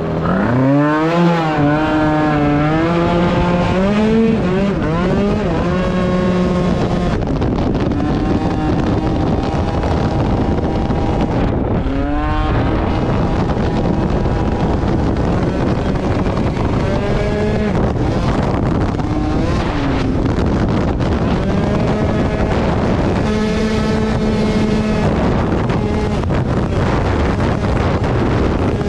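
Two-stroke scooter engine at high revs under repeated acceleration: its pitch climbs quickly, then holds steady, several times over, with wind noise across the microphone.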